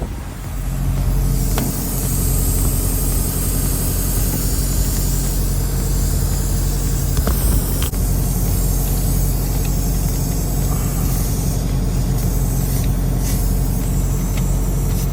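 Semi truck's diesel engine running steadily under a constant hiss, with a few faint clicks.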